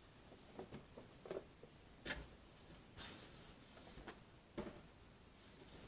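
Faint scattered clicks, taps and a brief rustle of boxed crochet-kit packaging being handled.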